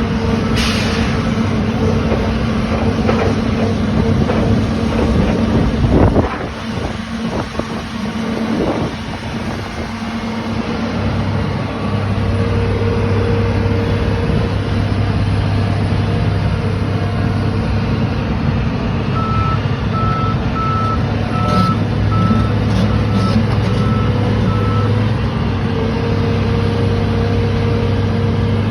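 Heavy construction machine's engine running steadily, with a few knocks early on. Past the middle, a reversing alarm beeps at an even pace for about six seconds.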